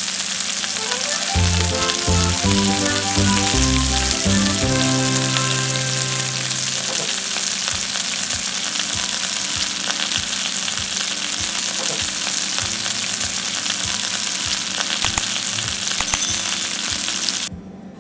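Meatballs and fried noodles sizzling in a hot pan: a steady frying hiss that cuts off suddenly near the end. A short run of musical notes plays over it during the first several seconds.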